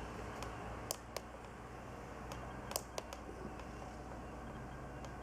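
A few light, sharp clicks, two near one second in and two near three seconds in, over a low steady hum.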